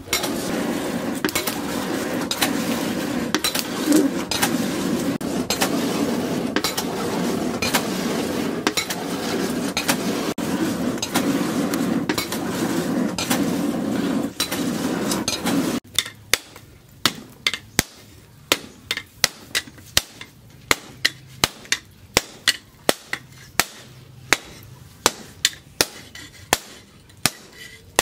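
Hand hammer striking hot steel on an anvil while forging a machete blade from plough-disc steel. For about the first sixteen seconds the blows sit under a loud steady rushing noise, which stops abruptly. After that, separate sharp hammer blows come at about two a second.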